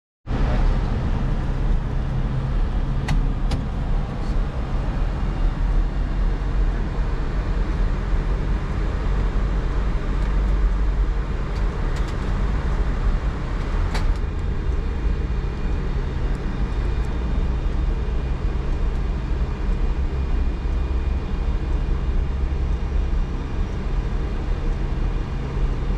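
Steady background noise in an Airbus A310 cockpit on the ground: a continuous low hum and rush from the aircraft's running engines and air systems, with a few faint clicks.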